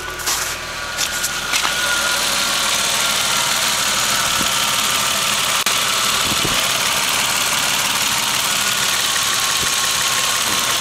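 1989 Toyota Supra Turbo's 7M-GTE inline-six running steadily, with a thin high-pitched whine over the engine noise. The owner has not traced this phantom squeal and has ruled out the belts.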